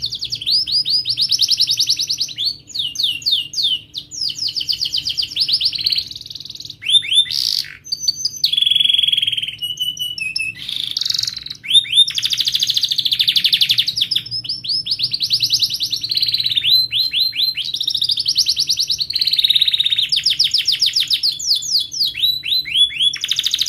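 Domestic canary singing: fast rolling trills of rapidly repeated chirps, phrase after phrase with short breaks. A few steadier held notes come about a third of the way in.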